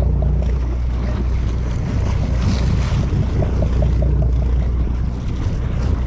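A boat's engine droning steadily, with wind on the microphone and water noise. A light, rhythmic ticking, about four a second, comes and goes: a spinning reel being cranked.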